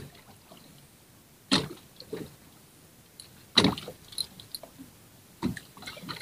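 Water slapping against the hull of a small fishing boat at sea: three short splashes about two seconds apart, with faint ticks and knocks in between.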